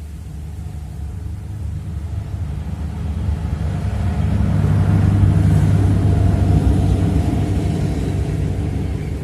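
A motor engine passing by. A low rumble grows louder to a peak about five seconds in and then slowly fades.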